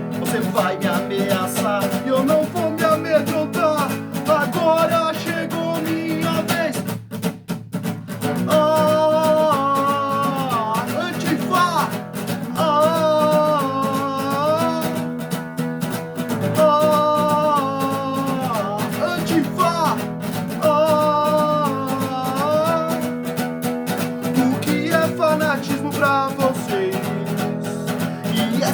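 Music with guitar: a band plays a melodic lead line, its notes bending, over steady accompaniment. The music drops out briefly about seven seconds in.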